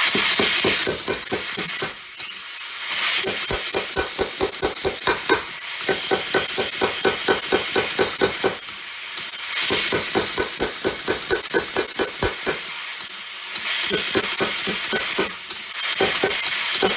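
Small air-driven Bulldog power hammer running, its ram striking hot half-inch square bar steel on the dies at about six blows a second to flatten and flare it. Compressed-air exhaust hisses with each stroke and swells louder several times.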